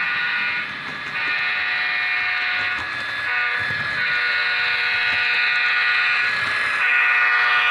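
Diesel locomotive air horn played by a Tsunami DCC sound decoder in an HO-scale model locomotive, through its small onboard speaker: long blasts with short breaks about a second in, around halfway and near the end, sounded as the train nears a flashing grade crossing.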